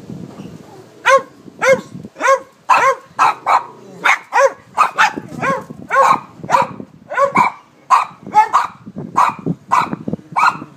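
Cavalier King Charles spaniel barking over and over, sharp high barks at about two a second, starting about a second in.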